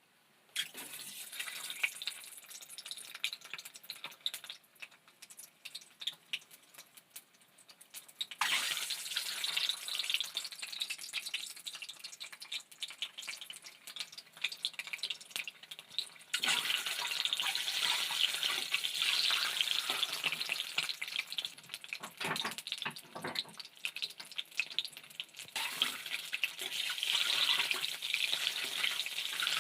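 Food frying in hot oil in a cooking pan: a dense, crackling sizzle that starts suddenly and gets louder in two steps, about a quarter and a half of the way through.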